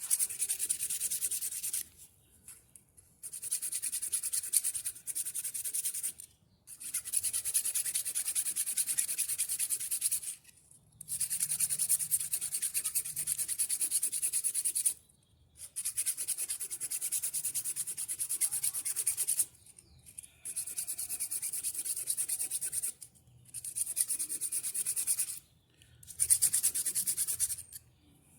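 Sandpaper rubbing inside a metal washing-machine transmission part, in about eight spells of quick scraping strokes separated by short pauses. The surface is being smoothed so the mating part slides in without scraping.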